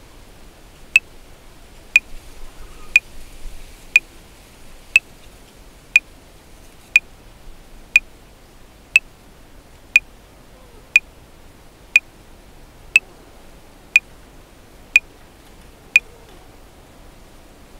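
Metronome clicking at 60 beats per minute, one sharp click a second: sixteen clicks, four bars of 4/4, over a faint steady hiss.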